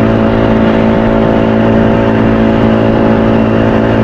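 Outboard motor of a small fishing boat running at a steady speed while under way.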